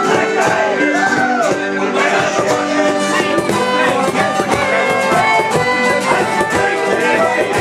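Irish folk band playing live, fiddle and banjo together over a steady strummed rhythm.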